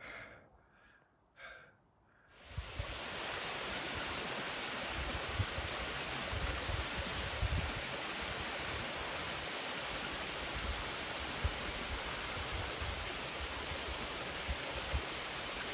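Steady rush of a rocky mountain creek, starting abruptly about two seconds in, with irregular low wind buffeting on the microphone. Before it, a few faint soft footfalls in dry leaves.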